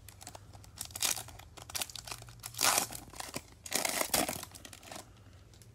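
Foil wrapper of a Topps Chrome trading-card pack crinkling and tearing as it is ripped open by hand, in a few sharp bursts, the loudest near the middle and about four seconds in.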